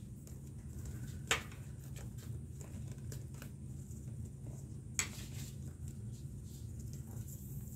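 Leather glove lace and web being handled and pulled through the lacing holes: faint rustling with two sharp clicks, about a second in and about five seconds in, over a steady low hum.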